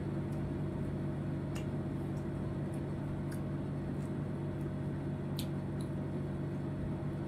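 A steady, low electrical hum from a running appliance motor, with a few faint, sharp clicks of eating and chewing food by hand.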